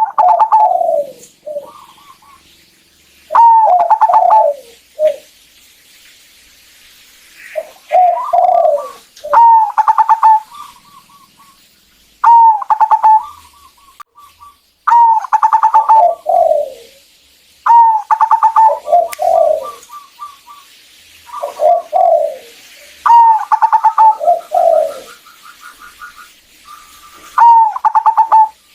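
Zebra dove (perkutut) cooing its song over and over: about ten phrases, one every two to three seconds, each starting with a rapid burred note and dropping into lower coos, often trailed by a quick stutter of short higher notes.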